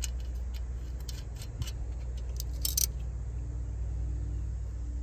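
Light metallic clicks and clinks of steel nylon-locking nuts and washers being handled and threaded by hand onto the studs of a metal bracket. The sharpest clicks come a little after two and a half seconds in, over a steady low hum.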